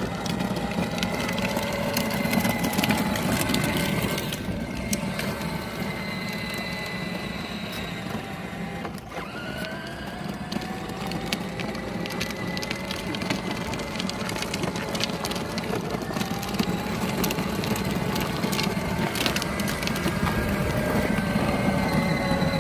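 Children's electric ride-on toy Cadillac driving: its motor whine rises and falls in pitch over several seconds, with a constant clatter of small clicks and rattles.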